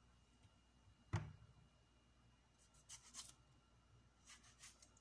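Faint sounds of a knife cutting tomatoes over a food processor bowl: a single soft thump about a second in, then a few short scraping cuts around the middle and again near the end; the processor's motor is not running.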